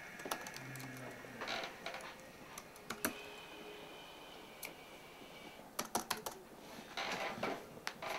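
Typing on a laptop keyboard: soft key clicks in short, irregular runs with pauses between.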